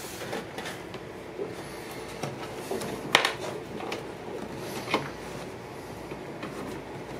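Cable handling and fumbling at a fanless mini computer while a USB plug is pushed into one of its ports, with a sharp click or knock about three seconds in and a smaller one near five seconds, over a steady low hum.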